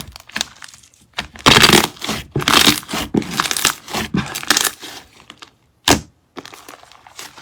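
Slime being squished and worked, giving rapid runs of crackling and popping that are loudest in the middle, with one sharp single pop near the end.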